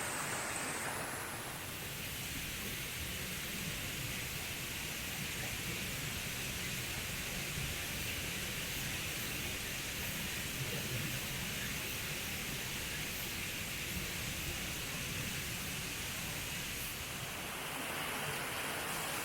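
Mountain valley stream rushing over rocks, a steady wash of water. Its tone changes about a second and a half in and again near the end.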